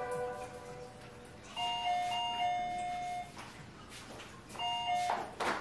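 Electronic doorbell chime ringing: a short two-note chime about a second and a half in, then a held tone, and another short chime near the end. It signals a visitor at the door.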